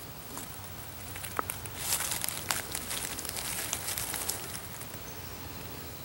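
Light rustling and scattered crackles in leaf litter on the forest floor, busiest about two seconds in.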